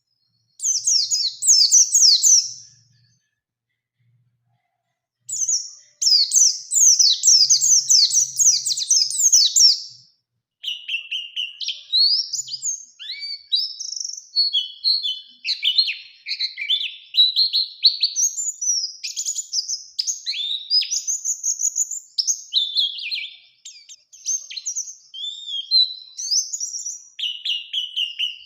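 White-eye (pleci) singing. It opens with a short burst of rapid, high, trilled notes, falls silent for about two seconds, gives a longer fast rolling trill, then from about ten seconds in runs on in a continuous varied warble of quick chirps and slurred whistles.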